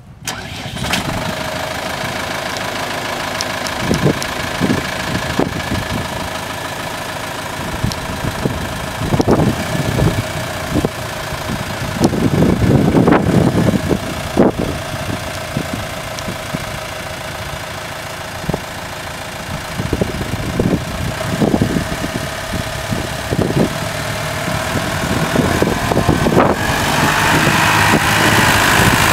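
Case IH Farmall 95 tractor's diesel engine idling steadily, growing louder near the end.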